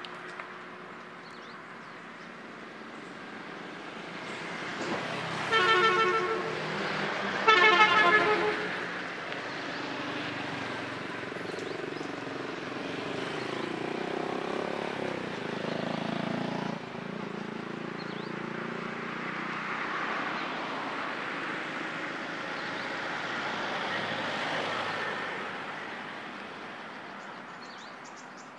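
Two vehicle horn honks, each about a second long and a second and a half apart, the loudest sounds, followed by motorbikes and cars driving past on the road, their sound swelling and fading.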